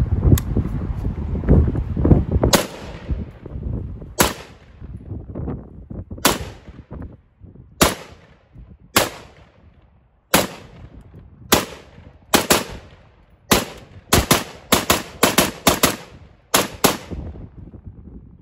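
Retro-built M16A1-style AR-15 rifle firing 5.56 rounds: about twenty sharp shots, each with a short echo tail. The first shots come a second or two apart, then the fire quickens into strings of several shots a second near the end.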